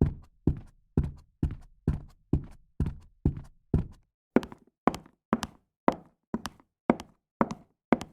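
Footsteps in high-heeled shoes walking steadily, about two steps a second, each a sharp heel strike. About four seconds in the steps change to a brighter, clickier strike with less low thud, as the walk moves onto a different surface.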